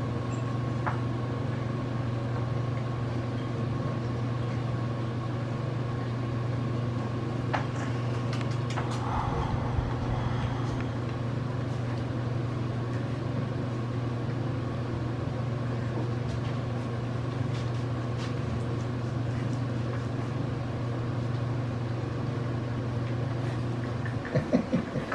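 A steady low mechanical hum with a faint higher whine, like room ventilation or air-conditioning machinery, cutting off about a second before the end. A few short, louder sounds come just as it stops.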